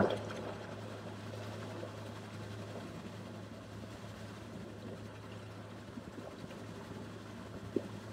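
Sherp amphibious ATV's diesel engine running steadily at low revs, a constant low hum. A single short knock near the end.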